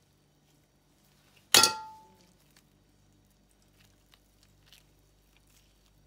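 A metal spoon clangs once against a stainless steel tray: a sharp hit with a short ringing tone that dies away within half a second. Faint soft handling noises follow.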